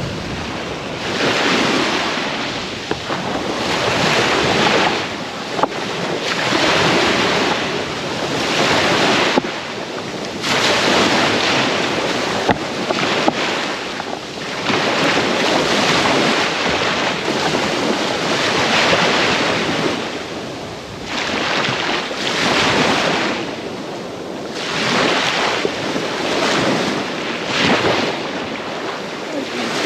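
Black Sea surf on a rough day breaking and washing up a shell-and-pebble beach, a wave surging every two to three seconds, with wind buffeting the microphone.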